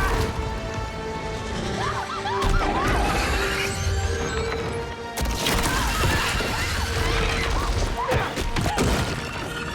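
Action film soundtrack: a dramatic music score over deep rumbling and crashing, with a sudden loud crash about five seconds in.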